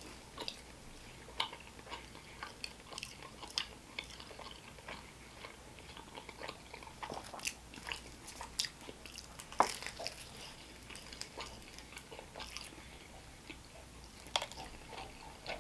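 Close-miked chewing of a bite of phyllo-wrapped chicken samosa: irregular short wet mouth clicks and smacks, with one louder click about ten seconds in.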